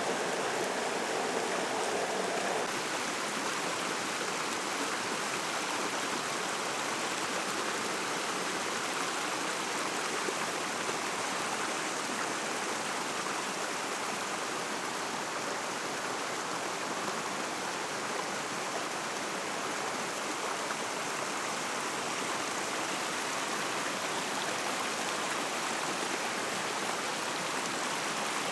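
Steady rushing water of a mountain stream, an even wash of sound with no breaks. A slightly deeper part of the rush drops away about three seconds in.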